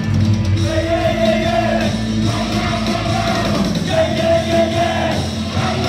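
Worship team singing an upbeat praise song into microphones over amplified band music, in held phrases about a second long.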